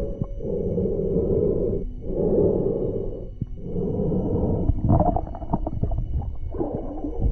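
Muffled water sound from a camera held underwater: a rushing swell that comes and goes about every one and a half seconds. From about five seconds in it breaks into a run of clicks and knocks.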